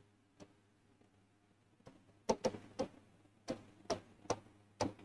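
Chalk tapping and scraping on a chalkboard as a word is written: a few isolated taps at first, then irregular clusters of sharp clicks from about two seconds in.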